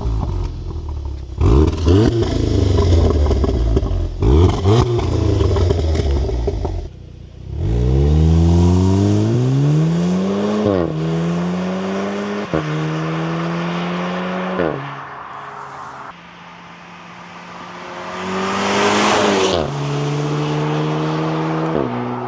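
Audi TTS Mk3's turbocharged 2.0-litre four-cylinder engine and exhaust: a low rumble with quick throttle blips and sharp pops for the first several seconds, then a hard acceleration up through the gears, the pitch climbing and dropping sharply at each quick S tronic (DSG) upshift, about every two seconds. Near the end the car surges loudly again with rising pitch.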